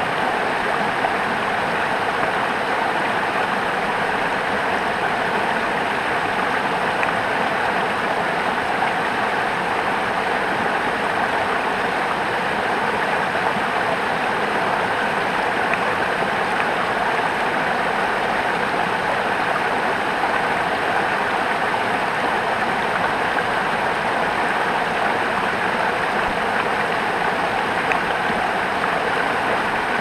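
Steady, unbroken rush of a rocky mountain creek: water splashing over stones right at the microphone, with a waterfall cascading just upstream.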